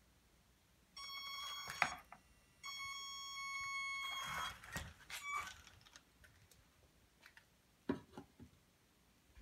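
Two steady electronic beeps near the same pitch, the first about a second long and the second about a second and a half, with sharp clicks and knocks between and after them.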